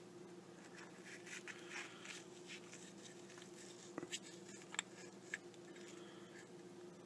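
Faint handling sounds of melamine foam pieces being pressed down into a Zippo lighter insert: light scratching and rustling, then a few small sharp clicks about four to five seconds in, over a steady low hum.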